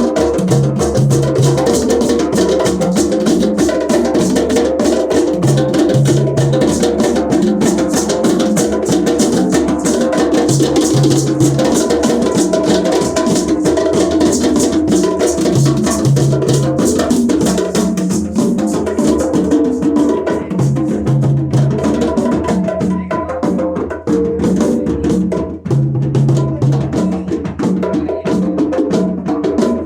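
Djembe percussion music: a dense stream of fast drum strokes and sharp, woodblock-like clicks over pitched tones, with a low bass note sounding in short pairs every few seconds. The highest, brightest part of the sound thins out about two thirds of the way through.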